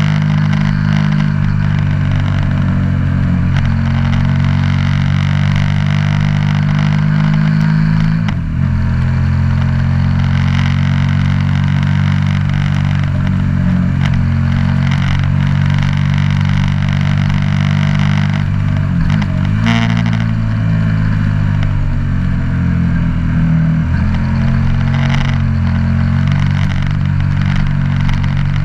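KTM 1290 Super Duke R's V-twin engine running steadily at road speed, with wind rushing over the microphone. The engine note dips and picks up again briefly twice, about eight and nineteen seconds in.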